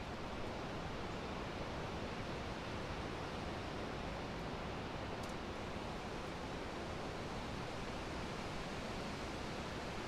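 Steady outdoor ambience: an even rushing noise with no distinct events, and one faint tick about five seconds in.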